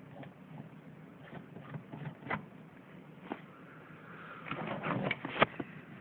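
Handling noises from a disassembled space heater: scattered light clicks and knocks as its parts are moved by hand, then a quick run of rattling clicks about four and a half seconds in, ending in the loudest click, as the fan housing is picked up.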